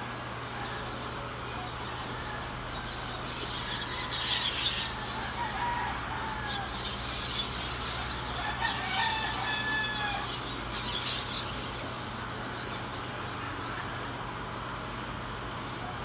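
Birds calling in several bursts, the loudest about four seconds in and again around seven, nine and eleven seconds, with short whistled notes among them, over a steady rush of flowing river water.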